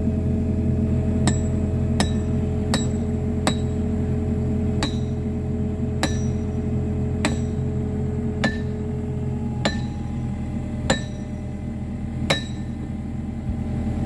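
Spike maul driving steel track spikes into wooden railroad ties: about eleven sharp, ringing metal-on-metal strikes, quick at first and then roughly one a second. A steady low engine hum runs underneath.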